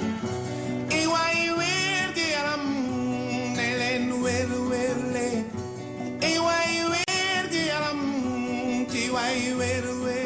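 A song: a voice singing long phrases with wavering pitch over plucked acoustic guitar, a new phrase starting about every two and a half seconds.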